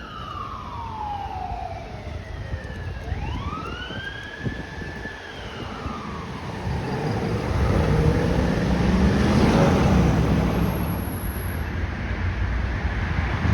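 A fire truck's siren in a slow wail: falling, rising again about three seconds in, then falling away. The truck then passes with a heavy rumble that is loudest about nine to ten seconds in.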